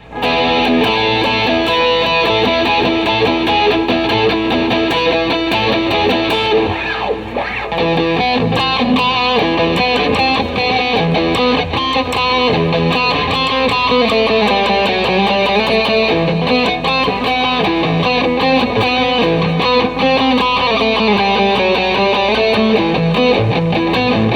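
Guitar played continuously, a picked melody over strummed chords, on old, rusty strings.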